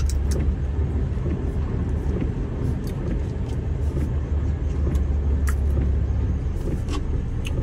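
Tractor-trailer engine and road noise inside the cab while driving: a steady low drone with a few scattered light clicks.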